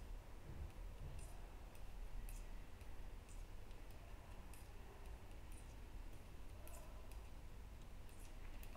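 Two knitting needles clicking faintly against each other as purl stitches are worked, in small irregular taps about once a second.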